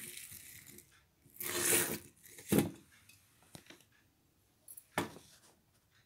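Handling noise as the decorated clay-pot bird house is moved: a rustling scrape about a second and a half in, a knock shortly after, and another knock near the end.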